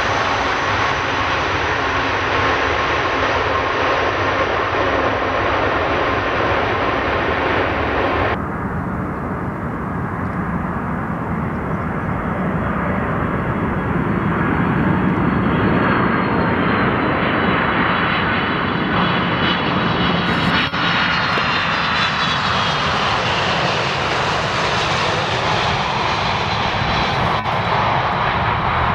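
Boeing 747 freighter jet engines running with a steady, loud roar. About eight seconds in the sound cuts abruptly to another 747, whose high engine whine slowly falls in pitch over its roar.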